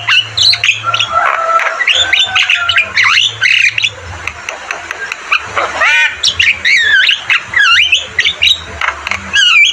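Javan myna singing a fast, varied stream of gliding whistles, chirps and harsh squawks with hardly a pause.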